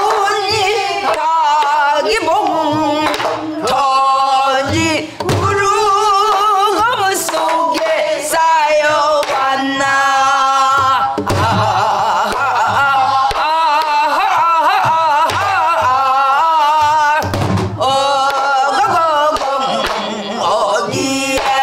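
A woman sings a Korean folk song in a trained pansori voice, her long held notes wavering with heavy vibrato. She accompanies herself with a few stick strokes on a buk barrel drum, heard as short low thumps.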